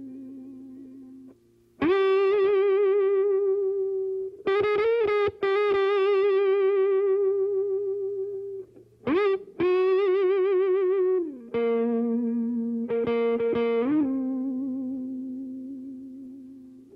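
Background music: a lead electric guitar with effects playing slow phrases of long held notes, each wavering with vibrato, with short breaks between phrases.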